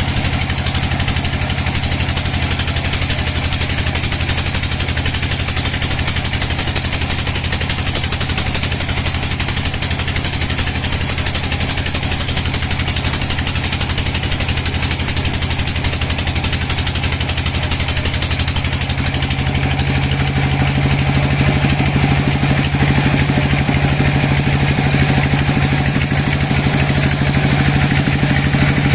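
Engine-driven band sawmill running steadily, with a constant engine hum under a broad hiss; about 20 seconds in the engine note grows stronger and a little louder.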